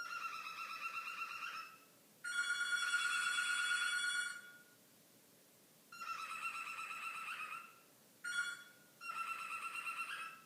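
Cockatiel mimicking a house telephone's electronic ringtone: a warbling, trilled whistle held on one pitch, repeated in five bursts of about half a second to two seconds each. The second burst is the longest and loudest.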